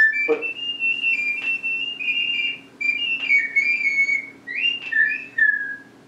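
Small handmade clay ocarina played, heard through a video call: a short tune of clear, high, held notes stepping up and down, with a quick upward slide near the end and a few lower notes to finish.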